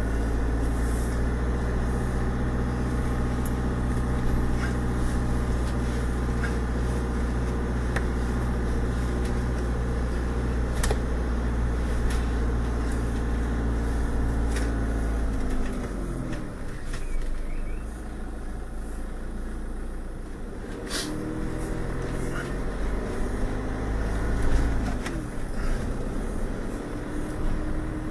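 Motorhome engine and road noise heard from inside the cab while driving slowly. The engine note drops about halfway through as it eases off, then rises again near the end as it picks up speed, with a few sharp clicks along the way.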